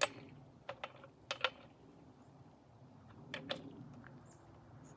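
Chainsaw bar nuts being tightened down with a wrench: a few light, sharp metal clicks, mostly in close pairs, with pauses between.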